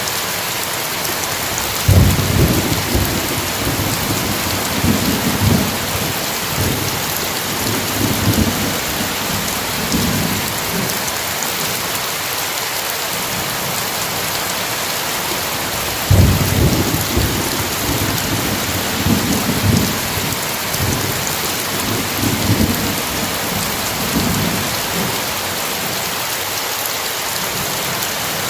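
Steady heavy rain with two rolls of thunder. The first starts about two seconds in and the second about halfway through, each a low rumble that swells and fades in waves over several seconds.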